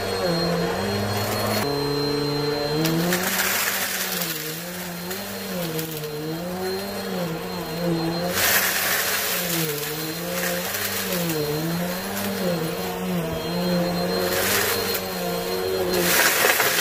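Vacuum cleaner motor running, its pitch rising and falling in waves as it is worked back and forth over a dirty carpet. At times a rushing hiss of air swells and fades.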